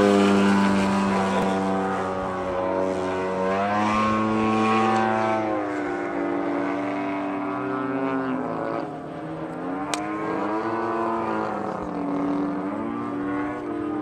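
50cc gas engines of large radio-control aerobatic planes, an Aeroworks Extra 260 among them, running overhead, their propeller drone swooping down and back up in pitch several times as the planes manoeuvre and change throttle.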